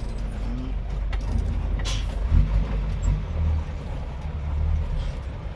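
Truck engine running inside the cab while the truck drives slowly over a rough dirt road, a steady low rumble. A few short clatters break through, the loudest about two and a half seconds in.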